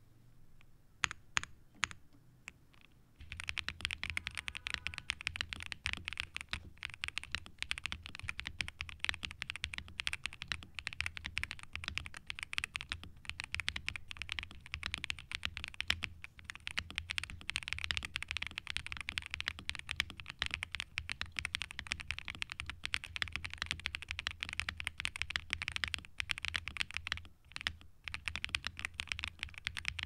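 YUNZII B75 gasket-mount mechanical keyboard, with LEOBOG Graywood V3 linear switches, a PC plate and double-shot ABS keycaps, being typed on. A few single keystrokes come first, then steady, fast touch typing starts about three seconds in.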